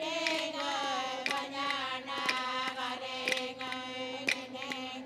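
Anangu Inma song: several voices chanting together in long held, slowly shifting lines, over a sharp beat struck about once a second.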